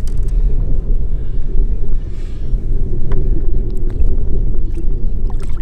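Wind buffeting the microphone: a loud, uneven low rumble with no steady pitch.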